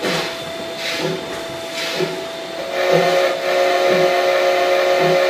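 Sound-equipped O scale narrow-gauge model steam locomotive chuffing steadily, about two hissy chuffs a second. About two and a half seconds in, its whistle sounds one long blast of several notes at once, lasting about three seconds.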